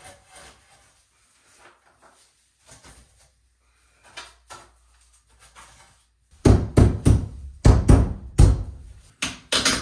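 A few faint clicks, then from about two-thirds of the way in a run of about ten loud, irregular knocks and thumps over three seconds.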